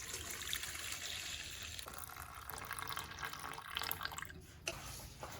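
Water pouring into a cooking pot, a steady splashing rush that eases off about four seconds in, followed by a single light knock.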